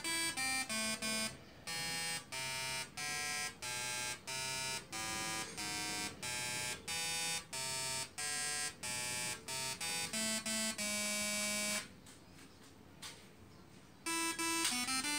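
Slayer exciter Tesla coil, its spark discharges switched by an Arduino interrupter, playing a melody as a string of buzzy electronic notes, about two to three a second. The notes stop for about two seconds near the end, then start again.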